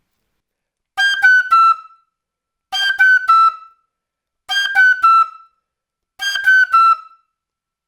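Quena, the Andean notched end-blown flute, playing a descending three-note figure, G, F sharp, E, in its high third octave. The figure is played four times, with short pauses between.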